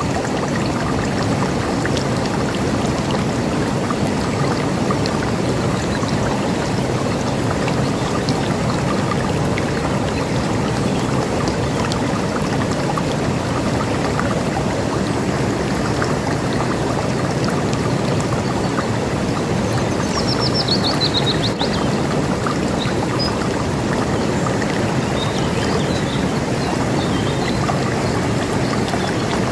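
River water flowing steadily, with a brief falling bird trill about two-thirds of the way in and a few faint chirps after it.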